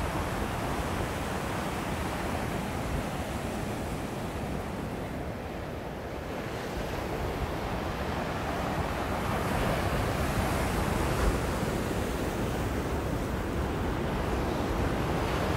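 Surf washing onto a rocky shore, heard as a steady rush with wind buffeting the microphone; the rush swells a little past the middle.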